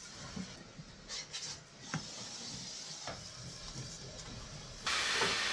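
Light rubbing and scraping with a few short knocks as old wallpaper is worked off the wall; about five seconds in, a wallpaper steamer's loud steady hiss of steam starts.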